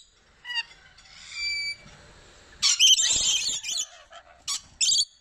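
Rainbow lorikeets squawking: a short call and a few thin whistled notes, then a loud burst of harsh screeching about halfway through, and two short screeches near the end.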